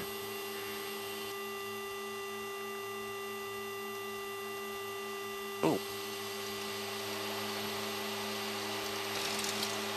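Steady drone in the cockpit of a Fairchild SA227 Metro twin turboprop on landing, made of several fixed low tones. It grows slightly louder in the second half, and a short falling chirp cuts in about halfway through.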